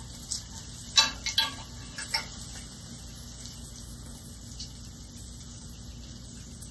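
Metal spatula and fork clinking against a skillet and plate, five quick knocks in the first couple of seconds, over a faint steady sizzle from the pan.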